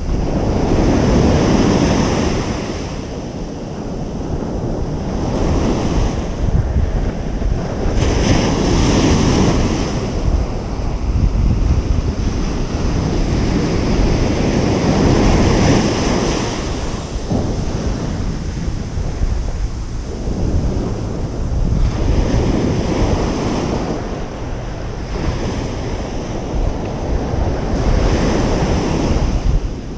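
Ocean surf breaking and washing on a beach, swelling and easing every few seconds, with wind rumbling on the microphone.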